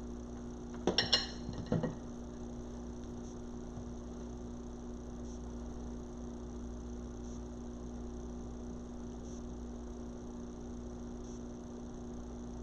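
A steady low electrical hum, with a couple of brief handling noises about a second in.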